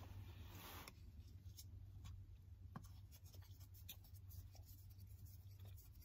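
Faint scraping and light clicks of a wooden spoon in the stainless-steel pan of an electric lunch box of noodles, over a low steady hum. A soft rustle comes at the start.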